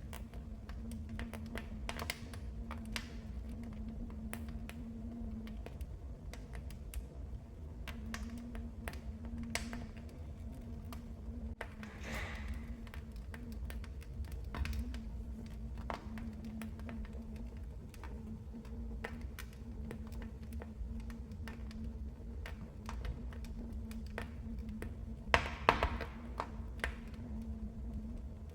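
Wood fire in a fireplace crackling, with irregular snaps and pops over a low rumble and a faint steady hum. A quick cluster of louder pops comes near the end.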